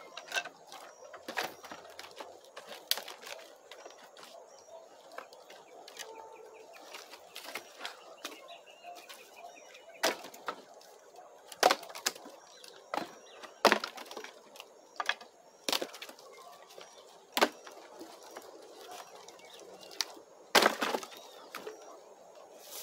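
Wood cracking and knocking: about a dozen irregular sharp cracks spread out, the loudest a little after halfway and a close cluster near the end.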